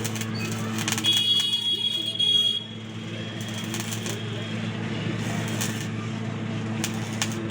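Electric arc welding on a motorcycle stand: a welding set hums steadily, and from about a second in a louder spell of arc crackle lasts about a second and a half.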